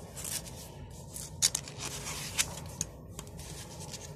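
Paper rustling and scraping as a hand handles the page of a picture book, with a few sharp clicks and crinkles.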